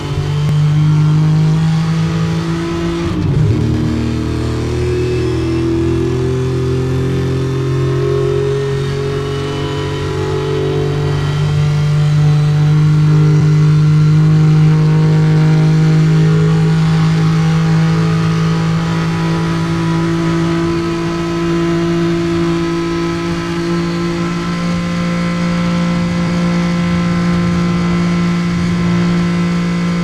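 Old Porsche 911's air-cooled flat-six engine running steadily. Its pitch dips briefly about three seconds in, then holds nearly level, and it grows slightly louder around the middle.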